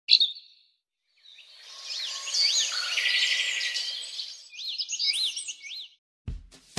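Birds chirping and twittering: repeated whistled notes that rise and fall, with a fast trill, swelling in about a second in and fading out near the end. A short bright chirp comes at the very start, and music with a drumbeat begins just before the end.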